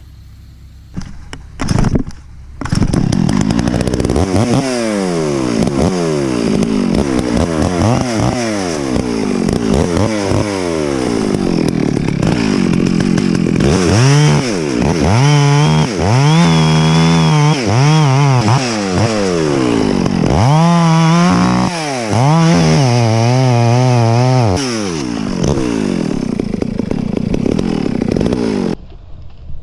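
Chainsaw cutting through a pine trunk, starting a few seconds in. The engine pitch rises and falls repeatedly as it revs and bogs under load, and it stops sharply near the end.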